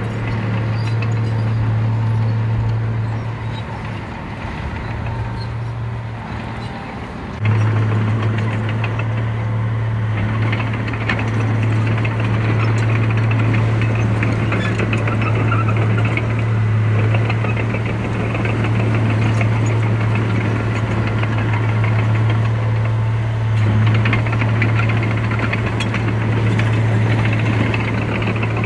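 Heavy earthmoving machine's engine running steadily with a rattling clatter over it. It steps up abruptly in level about seven seconds in and stays loud.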